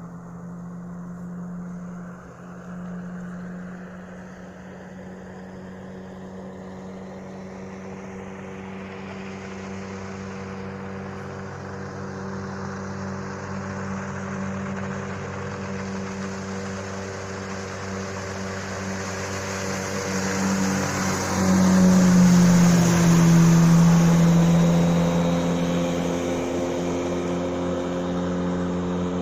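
Sea Pro 9.9 outboard motor running at a steady speed, growing louder over about twenty seconds, loudest a little after twenty seconds in with a slight drop in pitch, then easing back.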